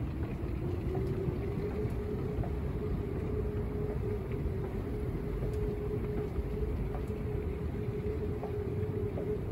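Steady low machine rumble with one constant mid-pitched hum over it, which climbs slightly in pitch in the first second and then holds steady.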